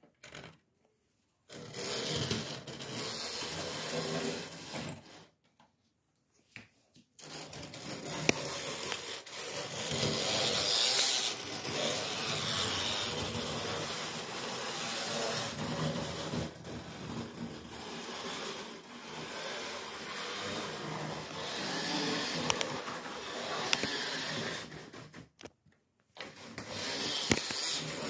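Small model steam locomotive's electric motor whirring and its wheels rattling along the track, with its cab broken off but the drive still working. The noise stops briefly three times and grows and fades in loudness as it runs.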